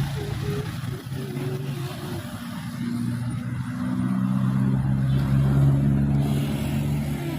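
Heavy diesel vehicle engine running in traffic with a steady low drone. It grows louder over the first few seconds as the vehicle comes close, then eases off slightly near the end.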